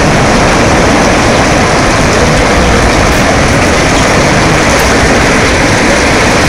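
Floodwater rushing along a street, a loud steady rush of water.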